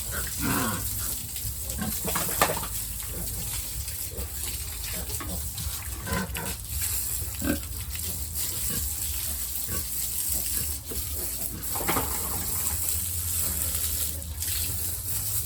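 A sow and her piglets grunting and squealing in short, scattered calls over a steady low hum.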